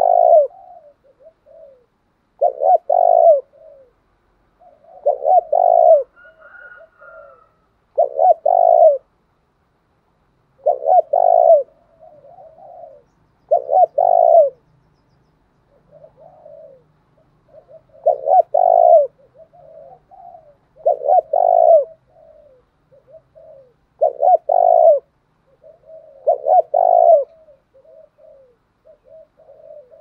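Spotted dove cooing: about ten loud coo phrases, one every two and a half to three seconds, with softer cooing notes between them. It is the territorial call of a male, used to provoke rival doves.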